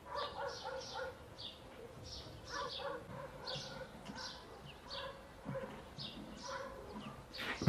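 Short high-pitched animal calls repeating about twice a second, with a sharp knock near the end.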